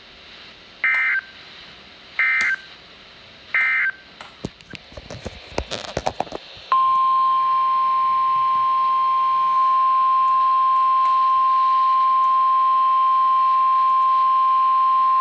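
NOAA Weather Radio alert sequence. Three short bursts of warbling SAME digital data tones come about a second apart, then a few seconds of crackling static. About seven seconds in, the steady 1050 Hz warning alarm tone starts, the signal that a warning message is about to be read.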